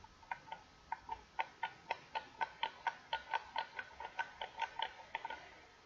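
A spoon clicking quickly and evenly against a plastic container, about four to five clicks a second, while working white glue out to make slime.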